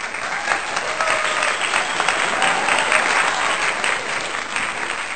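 Crowd applauding: the dense clapping of many hands, starting suddenly out of silence.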